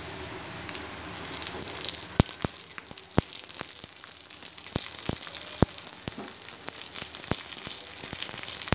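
Cashew nuts, raisins and sliced small onions sizzling as they fry in ghee in a nonstick kadai while being stirred with a spatula. From about two seconds in there are sharp clicks at irregular intervals.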